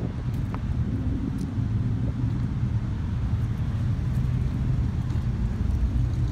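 A motor vehicle engine running steadily, a low even rumble with no change in pitch.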